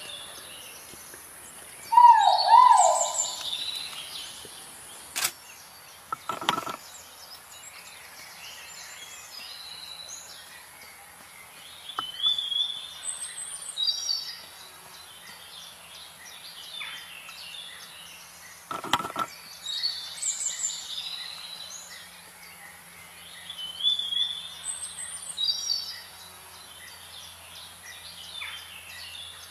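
Forest birds calling: a loud wavering two-note call about two seconds in, then scattered high chirps and whistles that recur every few seconds, with a couple of sharp clicks over a steady hiss.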